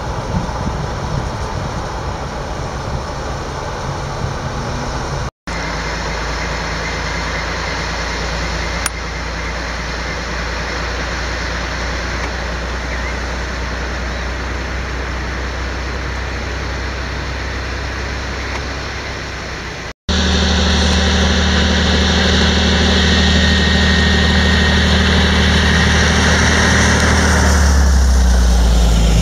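A diesel shunting locomotive's engine running steadily, with the sound broken twice by abrupt cuts. In the last part the engine drone is louder and close by, and its pitch drops as the locomotive passes near the end.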